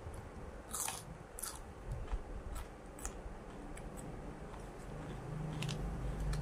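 Crisp crunching of raw cucumber being bitten and chewed close to the microphone, a handful of sharp crunches spread over the seconds.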